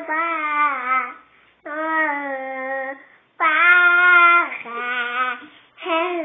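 A young child singing in long, high, wavering held notes: about four phrases, each a second or two long, with short breaths between them.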